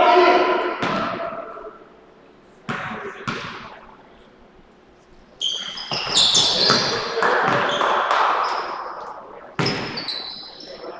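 A basketball bouncing on a hardwood gym floor a few times, each bounce echoing in the hall. About halfway in comes a louder stretch of sneaker squeaks and shouting as players scramble under the basket, with more squeaks near the end.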